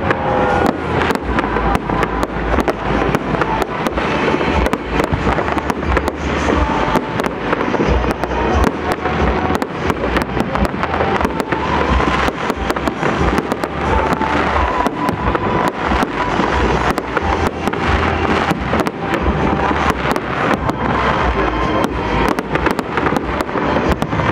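Fireworks display: aerial shells bursting and crackling in a rapid, continuous barrage, with music playing underneath.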